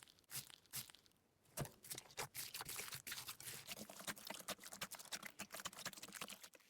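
Slime being squeezed and worked by hand close to the microphone: a dense run of small crackles and clicks, with a louder pop about one and a half seconds in.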